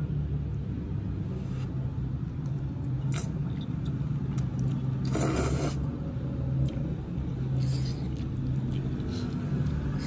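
Eating spaghetti with a metal fork from a ceramic bowl: a few short scrapes and clinks of the fork against the bowl, and a slurp of noodles about five seconds in, over a low steady hum.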